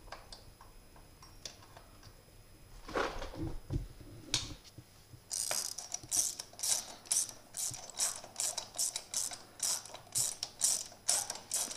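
Socket ratchet wrench clicking as it is worked by hand: a couple of light metal knocks, then from about halfway a steady run of clicking bursts, about three a second.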